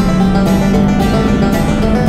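Background music with plucked strings and a steady beat.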